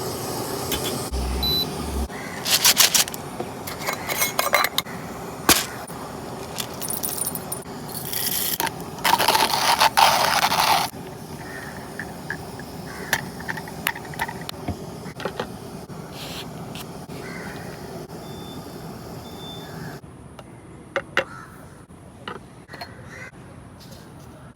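Coffee-brewing gear being handled: a run of light metal and glass clinks, knocks and scrapes, with a louder rushing noise for about two seconds near the middle.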